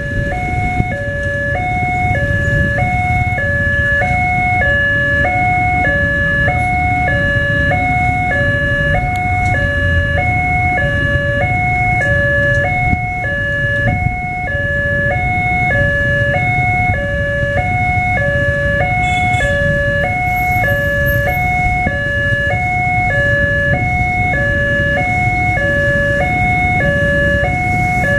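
Railroad level-crossing warning alarm sounding a steady two-tone high-low signal, the two notes alternating evenly and without a break, which signals that a train is approaching. Underneath it is the low rumble of motorcycle engines waiting at the crossing.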